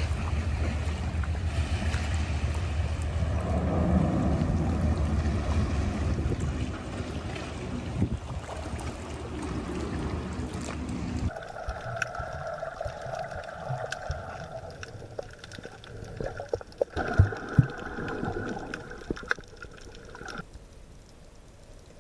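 Open-air water ambience with a heavy low rumble of wind on the microphone. About halfway through it cuts to muffled underwater sound: a steady hum with scattered clicks and knocks.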